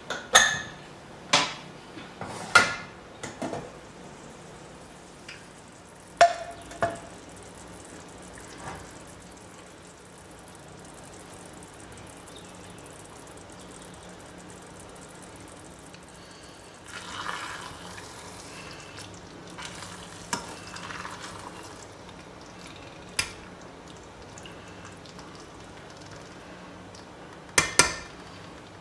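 Stainless-steel pressure cooker and spoon clinking: several sharp, ringing metal strikes in the first few seconds and again near the end as the lid is handled and the thick gravy in the pot is stirred. A stretch of hissing comes about halfway through.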